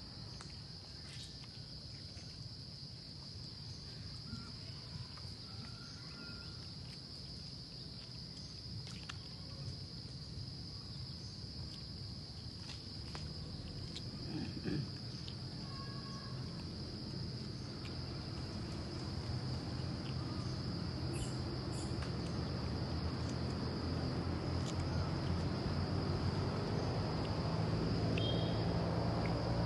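A steady high-pitched insect chorus, with scattered faint short calls, while a low rumble builds gradually over the second half.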